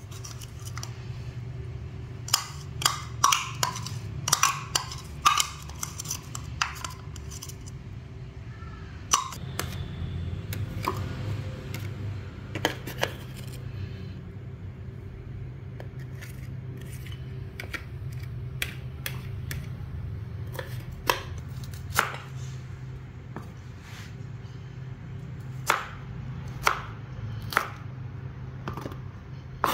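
Knocks and clinks of kitchen prep: a utensil scraping minced garlic out of a small plastic hand chopper into a dish, a cluster of clicks in the first few seconds. Later come single, spaced-out strikes of a cleaver chopping spring onions on a plastic cutting board. A steady low hum runs underneath.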